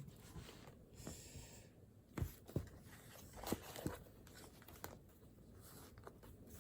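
Faint, scattered taps and a brief rustle of pen and paper at a desk, a few light knocks spread through the quiet room tone.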